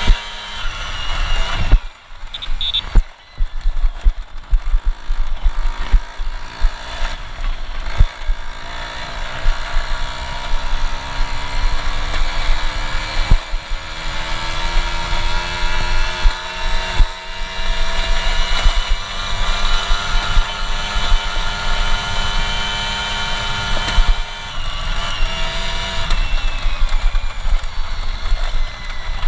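Piaggio Ciao moped's Polini-tuned single-cylinder two-stroke engine running under way. The revs drop briefly near the start, climb steadily for several seconds, hold, then ease off near the end. Frequent knocks and rattles from the frame jolting over the rough dirt track sound over a low rumble of wind.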